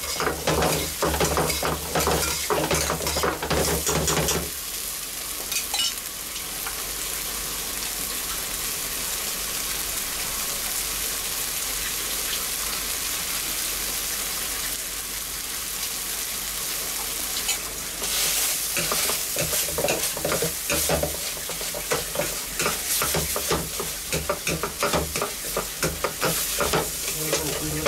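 Chopped onion and tomato frying in a shallow iron pan: a metal spatula scrapes and clatters rapidly against the pan for the first four seconds or so, then the mixture sizzles steadily on its own, and the rapid scraping and stirring starts again about eighteen seconds in.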